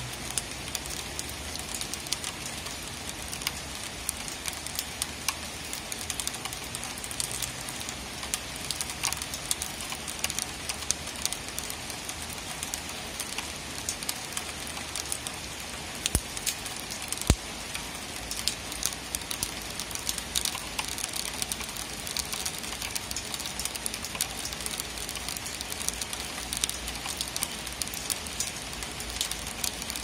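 Steady rain falling, with a dense patter of drops hitting a surface. Two sharper clicks come a little past halfway, about a second apart.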